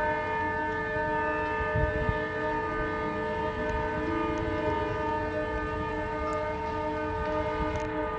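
Shabbat siren sounding over the city: a steady, horn-like tone of several pitches held without a break. A brief low thump comes about two seconds in.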